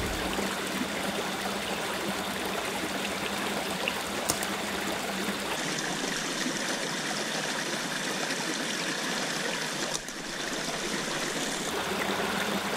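Small rocky brook running over stones: a steady trickle and rush of water.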